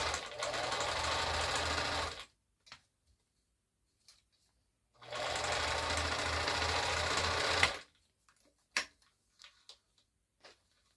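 Vintage Bernina Record 730 sewing machine stitching in two short runs of about two and a half seconds each. It stops about two seconds in, starts again about five seconds in and stops near eight seconds. A few light clicks fall in the pauses and after.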